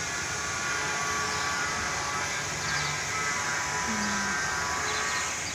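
Steady mechanical hum with a constant hiss.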